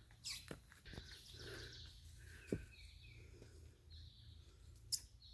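Faint bird calls: short chirps repeated in small groups, over a low steady background. A few sharp clicks sound in between, the loudest about two and a half seconds in and another near the end.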